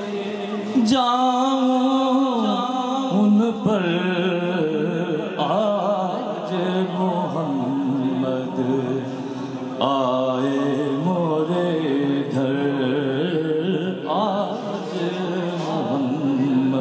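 A man singing a naat, a devotional praise poem for the Prophet Muhammad, solo into a microphone. He sings in long phrases with wavering, ornamented pitch and only brief pauses for breath.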